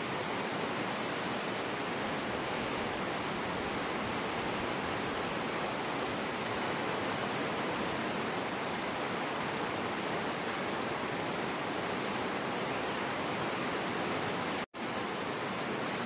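White-water rapids of a river in a narrow rock gorge: a steady, dense rush of water, broken once near the end by a split-second dropout.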